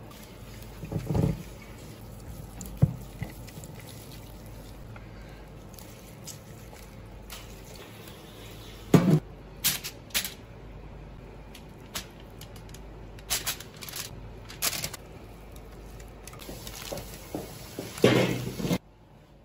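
Hands working spice seasoning into blanched lamb legs and setting them on a foil-lined baking tray: scattered wet squishing of the meat and brief rustles of aluminium foil, with the loudest bursts about a second in, around nine to ten seconds in and near the end.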